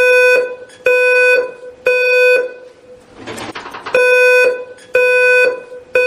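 Ceiling smoke alarm sounding: loud beeps about half a second long, three in a row a second apart, a pause, then three more. This is the three-beep temporal pattern used as the fire evacuation signal.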